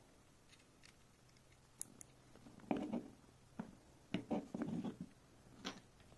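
Handling sounds of a small round circuit board. Two sharp clicks come about two seconds in as a microSD card is pushed into the board's card slot. Then come scraping and light knocks as the board is turned over and set down on a cutting mat.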